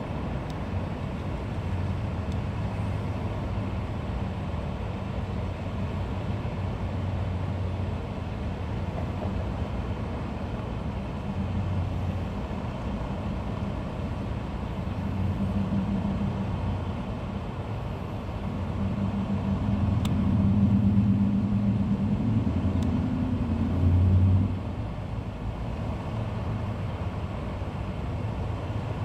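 Road vehicle rumble with a low engine hum, swelling louder about two-thirds of the way through as a vehicle passes, then dropping away suddenly.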